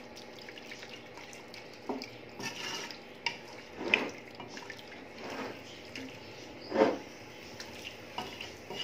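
Spoon stirring pieces of beef tripe in water in an aluminium pot: the liquid sloshes and the spoon knocks and scrapes against the pot in a few separate strokes, the loudest about four and seven seconds in.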